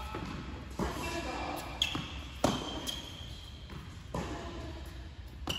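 Tennis ball being struck by rackets and bouncing on a hard court during a steady baseline rally: about five sharp knocks, each echoing briefly in a large indoor hall.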